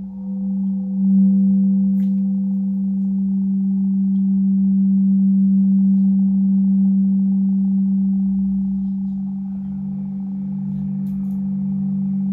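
Singing bowls sounding a steady, sustained low hum, with a large crystal singing bowl being rubbed around its rim with a mallet; the tone swells and eases gently. About nine seconds in, a second, lower bowl tone joins, and the two beat against each other in a slow waver.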